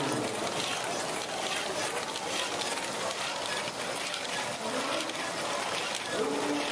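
LEGO Great Ball Contraption modules running: a steady, dense clatter of many small plastic balls rattling and clicking through the lifts, hoppers and chutes, with voices in the hall behind.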